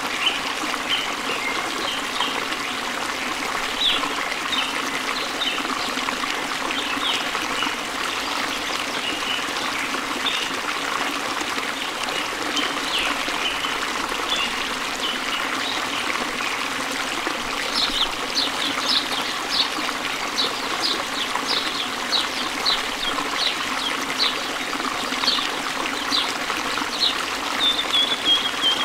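Steady rush of running water, like a trickling stream, with short high chirps from small birds over it. The chirps are sparse at first and come about twice a second in the last ten seconds.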